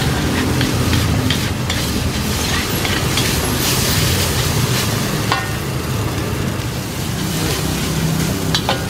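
Metal spatula scraping and clacking against a wok as fried rice and noodles are stir-fried, with sizzling over a steady low rumble.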